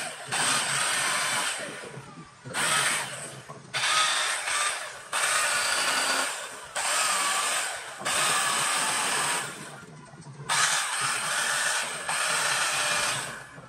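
Handheld electric carving tool grinding into rosewood in about eight short passes of a second or so each, the sound dropping away between passes.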